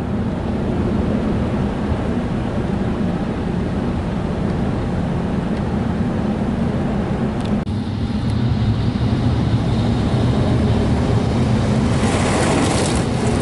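Road noise heard from inside a car driving on a snowy highway: a steady rumble of tyres and engine with a hiss over it. A louder, broader rushing hiss builds near the end.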